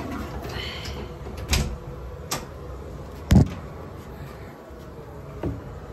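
A few sharp knocks and clatters, the loudest about three seconds in, with a brief high squeak within the first second.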